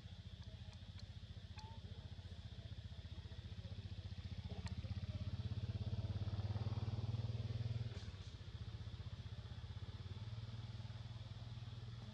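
Motorcycle engine running with a low, pulsing hum that grows louder, then drops away suddenly about eight seconds in and carries on more quietly.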